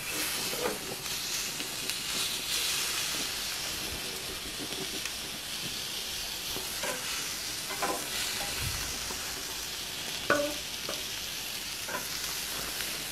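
Wagyu ribeye strips sizzling steadily on a hot grill grate as their cut insides are seared to caramelise. A few light taps ring out as the tongs and knife touch the grate, the clearest about ten seconds in.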